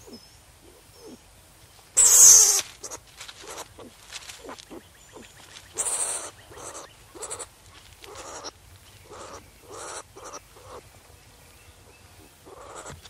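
Farm animals bleating: a loud harsh call about two seconds in, another near six seconds, and a run of shorter calls in between and after.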